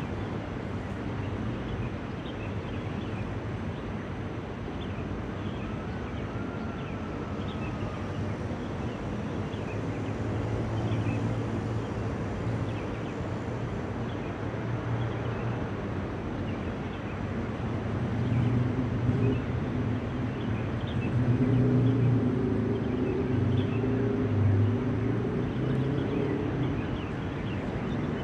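Outdoor traffic ambience: a steady rumble of road vehicles, with an engine hum that grows louder about two-thirds of the way through and then eases off.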